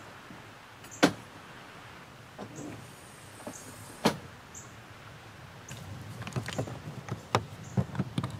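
Pop-top camper roof being pushed up, with two sharp knocks about three seconds apart. Near the end comes a run of clattering plastic clicks and handling noise as a red 30-amp shore-power plug is pushed and twisted into the trailer's power inlet.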